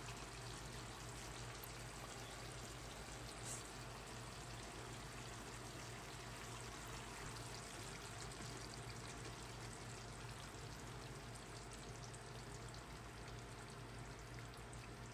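Coconut milk pouring in a thin stream into a frying pan of pork adobo, a faint steady pouring sound.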